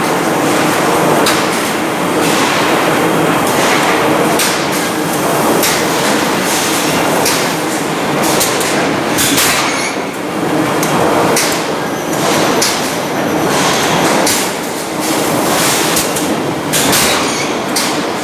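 Forging machine running: a loud, continuous clatter of machinery with frequent, irregular metallic knocks.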